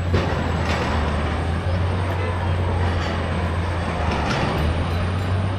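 Street traffic noise: a steady low engine rumble from heavy vehicles under a continuous wash of traffic sound, with a few faint clicks and knocks.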